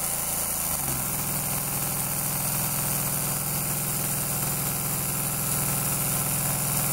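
Inexpensive 24 V DC submersible well pump running under load with a steady hum. About a second in the hum rises a little in pitch and grows stronger as the outlet pressure is let down from about 160 psi.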